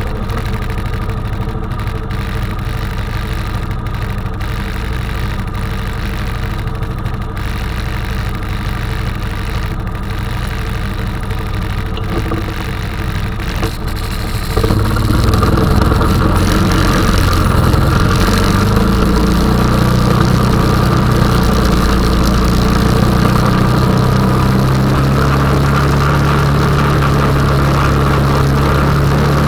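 Honda 420 ATV's single-cylinder engine idling steadily, then revving up about halfway through and running on louder at a higher, steady speed.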